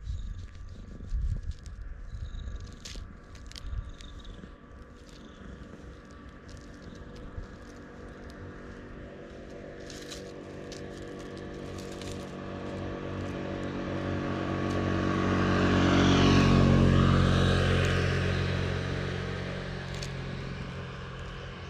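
A black stray cat purring loudly and steadily while it is stroked, with scratchy rubbing of the hand on its fur in the first few seconds. The purr swells to its loudest about two-thirds of the way through, then eases off near the end.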